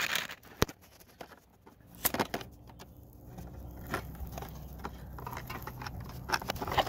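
A homemade alcohol stove being lit: a sharp click and a few light handling clicks, then a low steady rumble that builds from about halfway through as the alcohol flame catches around the rim.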